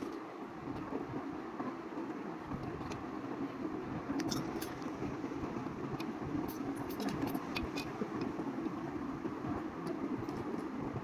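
Small plastic building bricks clicking as they are handled and pressed together, a scatter of sharp clicks from about four seconds in, over a steady low background rumble.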